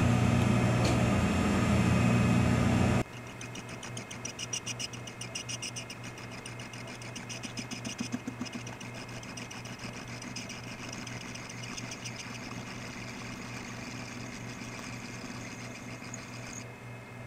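Monarch engine lathe running: a loud steady motor hum, then after about three seconds a quieter run with the tool turning stainless steel, a pulsing high-pitched cutting sound that swells and fades.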